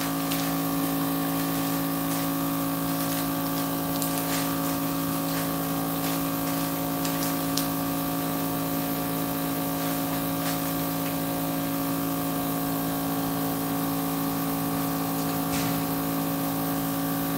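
Countertop vacuum sealer's small, not very powerful pump running with a steady hum as it draws the air out of a bag that still has air trapped in it.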